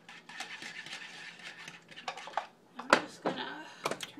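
A wire whisk scraping and ticking quickly in a pot of soup, whisking it smooth. About three seconds in comes a sharp clank, the loudest sound, then a couple more knocks.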